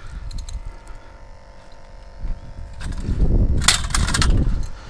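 Wind rumbling on the microphone, then a landing net holding a small trout is hauled up out of the water onto the concrete seawall, with a sharp clatter and scrape of the net on the concrete about three and a half seconds in.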